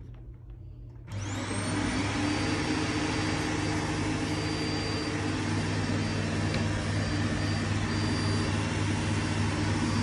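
Dyson upright ball vacuum cleaner switched on about a second in: its motor spins up with a rising whine, then runs steadily.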